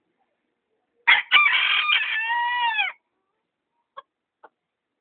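Bantam rooster crowing once, a crow of about two seconds: a few short choppy notes, then a long held note that falls away at the end. Two faint taps follow near the end.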